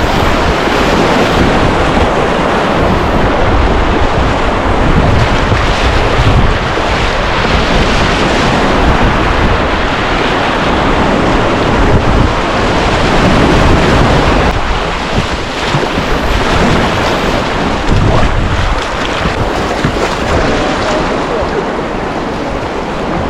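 Rushing whitewater of a fast mountain river running through rapids, a loud steady roar of churning water, with wind buffeting the microphone.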